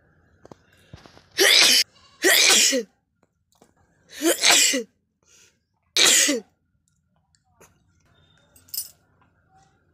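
A person sneezing loudly four times in quick succession, each sneeze a short forceful burst, followed by a brief fainter burst near the end.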